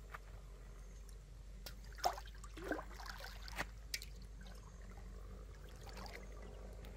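Creek water scooped up in a metal wok and poured back out, trickling and splashing into the stream. A few sharp clicks sound about two to four seconds in.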